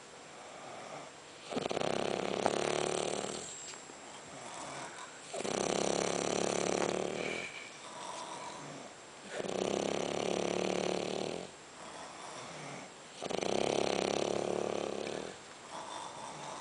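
Snoring in deep sleep: slow, regular snores, each about two seconds long, coming roughly every four seconds, four in all.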